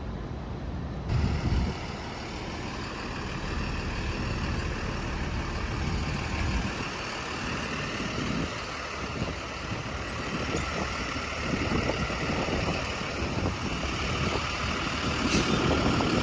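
City street traffic noise: motor vehicles running and passing, a steady mix of engine and tyre noise that grows slowly louder.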